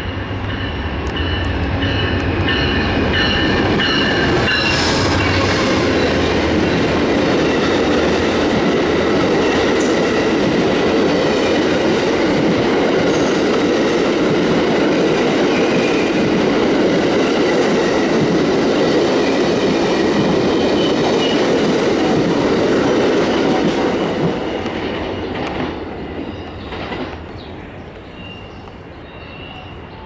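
Amtrak passenger train led by a GE Genesis diesel locomotive passing at speed: the locomotive's low engine hum as it arrives, then a loud steady rush of steel wheels on the rails as the cars go by. Thin high tones sound over it in the first few seconds, and the noise dies away after about twenty-four seconds as the train recedes.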